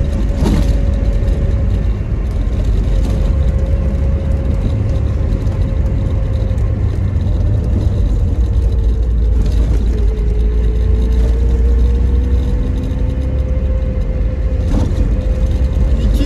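Tofaş Şahin with a side-exit exhaust being driven, heard from inside the cabin: a steady low engine drone with a thin whine that sinks around the middle and climbs back. There is a short knock just after the start and another near the end.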